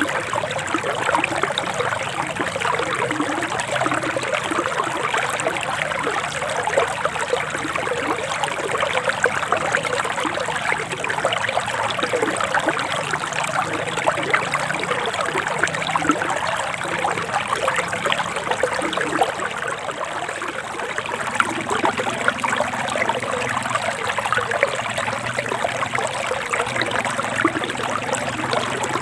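Forest stream flowing, a steady trickling and babbling of running water.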